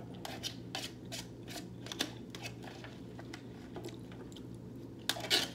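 Close-up eating sounds: a person chewing a mouthful of food, with irregular wet mouth clicks about two or three a second and a louder crackle about five seconds in, over a low steady hum.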